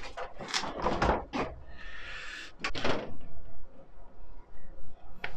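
Clunks and knocks of metal and plastic car parts being handled as the radiator is worked loose from the car's stripped front end, with a brief scraping slide about two seconds in and a last knock near the end.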